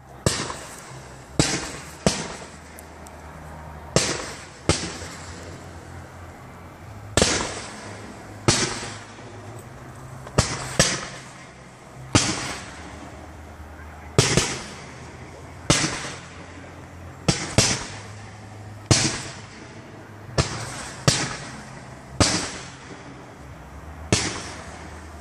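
Fireworks display: aerial shells bursting in an irregular series of sharp bangs, about twenty in 25 seconds, sometimes two or three in quick succession, each bang fading out over a second or so.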